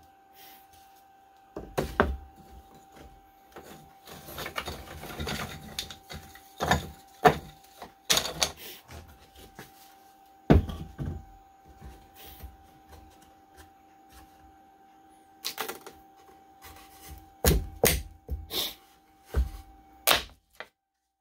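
Freshly CNC-cut half-inch birch plywood parts being pulled from the sheet and handled: irregular wooden knocks and clatter, several of them loud, with a stretch of scraping about four to six seconds in.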